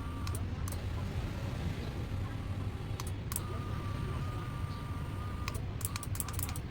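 Small 12 V DC electric motor drive running with a steady low hum and a faint high whine that cuts out and comes back, with sharp clicks where it stops and starts and a quick run of clicks near the end.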